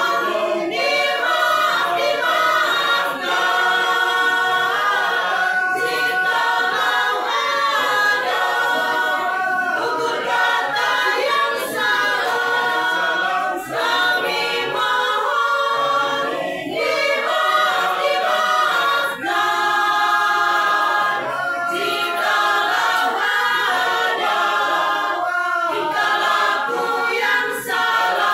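A masamper choir of men and women singing unaccompanied in several-part harmony, the traditional a cappella group singing of the Sangihe-Talaud islands, with brief breaks between phrases.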